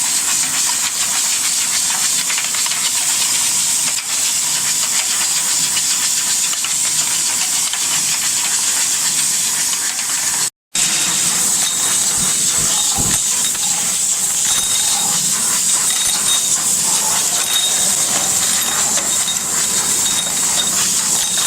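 Rotary plastic bottle unscrambler running: a steady hiss with light clattering of plastic bottles. The sound cuts out for a moment about halfway through.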